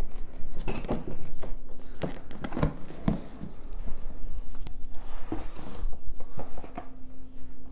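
Large cardboard model-kit box being opened: the lid slid and lifted off, with irregular knocks and scrapes of cardboard being handled and a brief rustle of the plastic-bagged parts about five seconds in.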